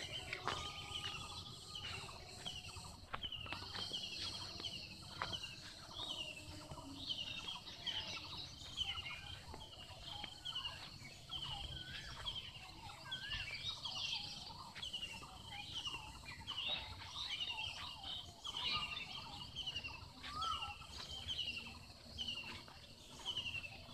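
Birds calling outdoors: a steady run of short, falling chirps repeating a couple of times a second, with other fainter bird calls mixed in.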